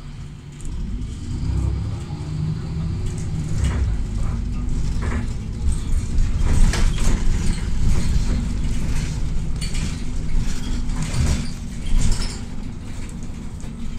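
City bus running, heard from inside the cabin: a steady engine and drivetrain drone that grows louder about a second in as the bus picks up speed. Sharp knocks and rattles come through the middle and near the end as the wheels cross tram tracks.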